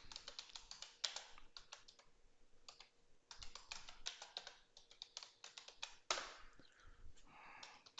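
Faint typing on a computer keyboard, quick irregular key clicks with a short pause about two seconds in, as the command 'sudo apt-get update' is entered. A brief soft noise about six seconds in.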